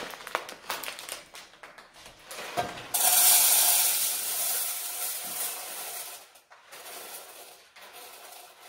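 Dried peas poured from a plastic bag into a stainless steel saucepan: a sudden rush of grains rattling onto the metal about three seconds in, fading over the next few seconds. Before it, the bag rustles and there are a few small clicks.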